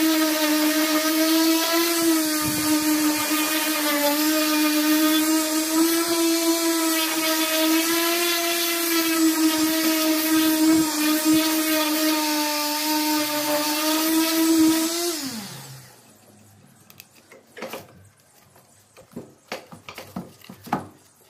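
Electric random orbital sander running steadily against the wooden face of a cricket bat, its motor whine holding an even pitch. About fifteen seconds in it is switched off and the whine falls away, leaving a few faint taps.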